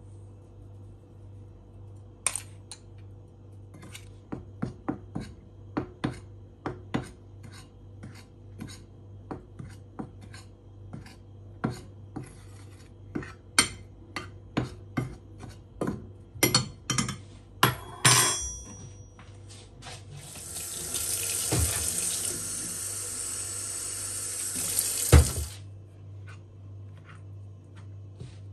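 A metal spoon taps and clinks against a ceramic mixing bowl many times as flour is scooped and stirred. About twenty seconds in, a steady stream of liquid runs into the bowl of flour for about five seconds and ends with a thump.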